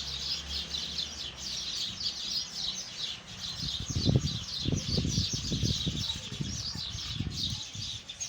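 A flock of sparrows chirping and chattering all together in a tree, a dense continuous chorus. Irregular low thumps join in a little under halfway through.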